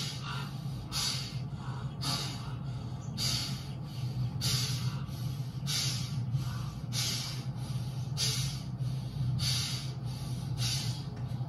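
Fast, even, heavy breathing through the nose, about one and a half breaths a second, like angry snorting after shouting, over a low steady hum.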